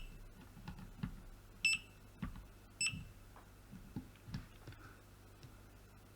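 Multimeter in test mode giving short high beeps, about three in the first three seconds, with light taps of the probes on the circuit board, as the switching transistors are checked for shorts; none turns out to be shorted.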